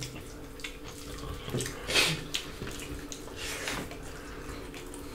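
Close-miked wet chewing and mouth sounds of people eating rice and salad with their hands, with short louder wet bursts about two seconds in and again past the middle.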